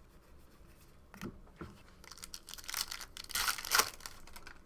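Crinkling and tearing of a foil trading-card pack wrapper as cards are handled, in a few short rustles that are loudest about three and a half seconds in.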